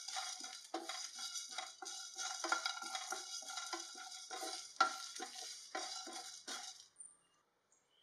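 Wooden spatula stirring dry whole spices (coriander seeds, cumin, fennel, peppercorns and dry chillies) as they dry-roast in a nonstick pan: scraping strokes about three a second over the rustle and rattle of the seeds, stopping about seven seconds in.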